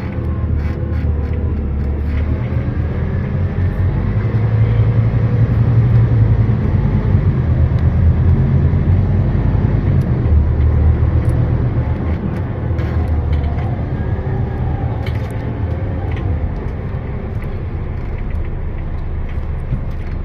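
Scania K320UB city bus running under way, heard from inside the cabin: a steady low engine and drivetrain rumble that grows louder about four seconds in, then eases off in the second half.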